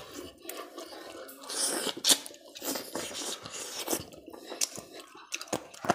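A person chewing chicken curry and roti with wet, open-mouthed smacking and clicking, in quick irregular bursts, with a sharp smack about two seconds in.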